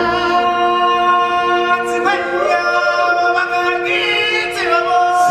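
Voices singing in a choir, holding long sustained notes with almost no instrumental backing. The chord shifts about two seconds in and again around four seconds.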